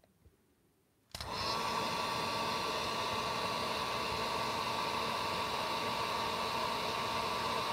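Heat gun switched on with a click about a second in; its fan rush and steady high whine rise briefly as it spins up, then run steadily, blowing hot air to shrink heat-shrink tubing.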